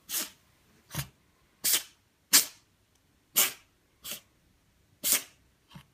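A cat sneezing over and over, about eight short sharp sneezes in quick succession, some louder than others.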